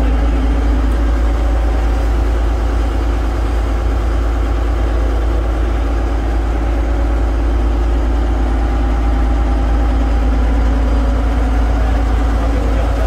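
Vaporetto water bus's diesel engine running steadily under way, a constant low drone with a hum over it.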